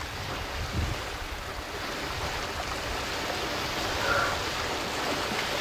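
Water splashing and swirling as African elephants wade and swim through a river close by, a steady rushing sound of churned water.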